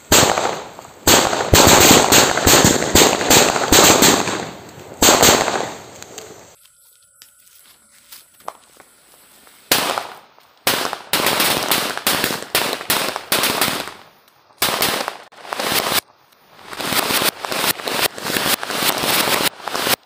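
A row of firecrackers exploding in quick succession, a fast run of sharp bangs. The bangs stop for about three seconds near the middle, then start again in several more rapid runs separated by short pauses.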